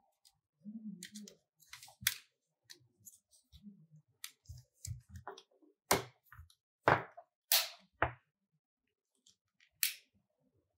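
Plastic clicks and knocks from a light-show drone's frame and LED board being handled and pressed together, with a cluster of louder clicks about six to eight seconds in and another near the end.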